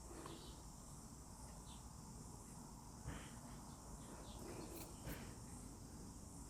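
Near silence: faint room tone with a steady high hiss and a few faint, soft brief sounds.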